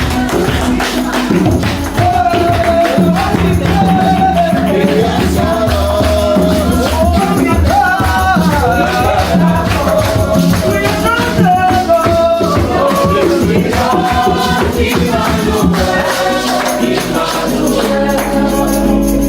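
Gospel worship music: a choir singing over a band with tambourine. The low bass drops away about 16 seconds in.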